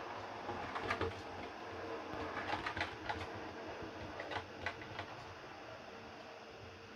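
Heljan O gauge Class 50 model diesel locomotive running along the track: a steady motor hum with irregular clicks of the wheels over rail joints and pointwork. The sound grows fainter near the end as the locomotive moves away.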